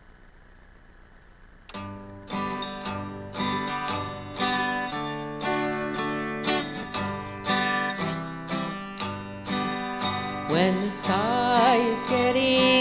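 Acoustic guitar playing an intro of strummed chords in a steady rhythm, starting about two seconds in after a moment of faint hiss. Near the end a woman's voice comes in singing over the guitar.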